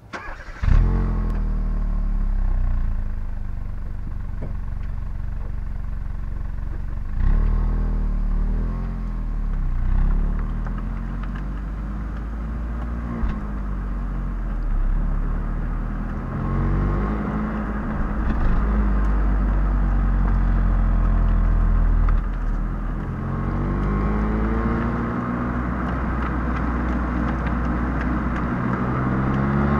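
Stock exhaust of a Hyundai i20 Elite with the 1.2-litre four-cylinder petrol engine, heard right at the tailpipe while the car drives. The sound comes in abruptly about half a second in, and the revs then climb and drop several times as the car accelerates through the gears, over a steady hiss of road noise.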